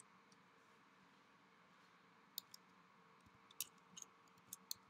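Faint computer keyboard keystrokes over a quiet room hush: a single click about halfway through, then a quick run of several clicks near the end.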